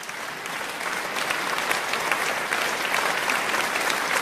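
Audience applauding, many hands clapping, growing louder over the first second and then holding steady.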